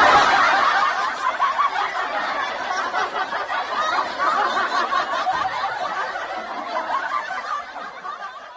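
Audience laughter, many voices at once, starting abruptly and slowly fading away near the end.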